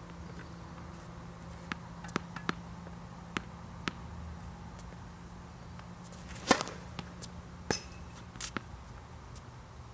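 Tennis balls bounced on a hard court before a serve: scattered sharp knocks, the loudest about six and a half seconds in, over a steady low hum.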